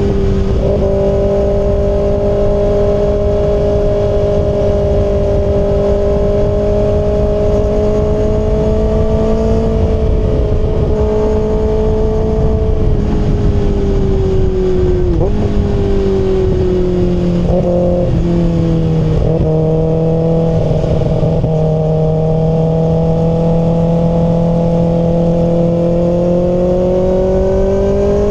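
Kawasaki ZX-6R's inline-four engine running under way at a steady pitch, dropping in pitch twice around the middle, then revving up near the end.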